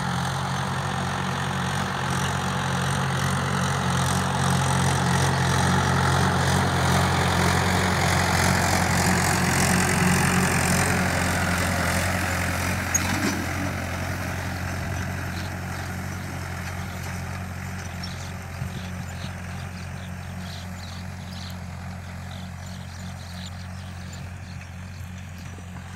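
Tractor engine running steadily while pulling a harrow across a field. It grows louder up to about ten seconds in, then fades as it moves away, with a light rattle from the implement.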